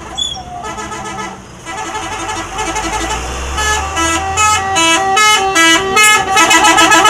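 Bus telolet horn, a multi-tone musical air horn, playing a tune of quick stepped notes that grows louder from about halfway and ends in fast alternating notes. A low engine rumble runs underneath through the middle.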